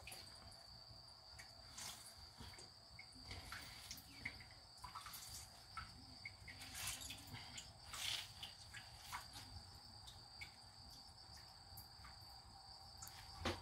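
Faint, steady high-pitched trill of crickets, with a few light knocks and clicks scattered through it.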